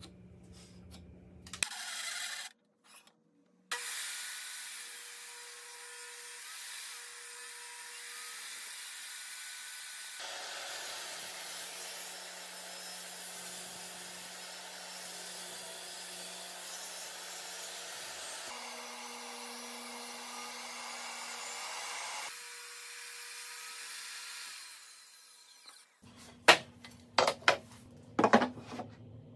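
Table saw running and cutting merbau and rubberwood strips, a steady hissing saw noise with a faint motor hum that changes abruptly a few times. Near the end, several sharp wooden knocks as wood pieces are set down on the workbench.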